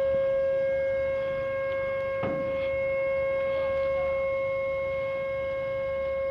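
A steady, unbroken trumpet-like drone held at one pitch, of unexplained origin, with a brief knock about two seconds in.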